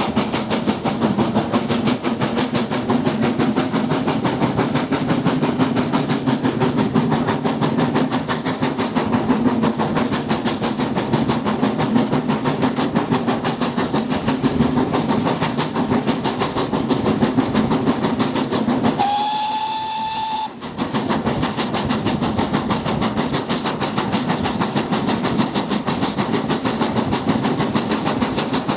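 Steady rumble and rush of a moving steam-hauled train, heard from a carriage window. About two-thirds of the way through, the steam locomotive's whistle sounds once, a single steady note lasting about a second and a half.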